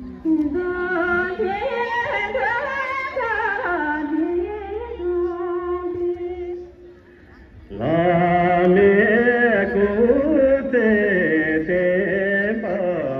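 Singing of a slow, ornamented melody with long wavering held notes. It breaks off about halfway through and comes back louder about a second later.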